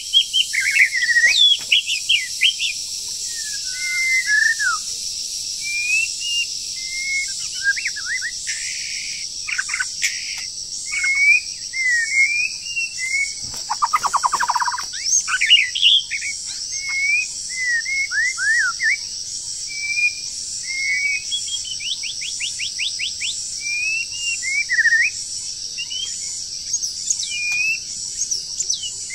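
White-rumped shama singing: a long run of varied clear whistled notes and slurred phrases, with a harsh buzzy call about halfway through and a quick rattling trill a little later. A steady high hiss runs underneath.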